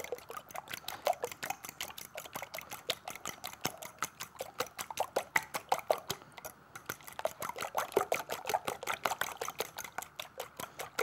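Eggs being beaten by hand in a glass bowl: the utensil clicks rapidly and evenly against the glass, about seven strokes a second, through the liquid egg, with a brief pause a little past halfway.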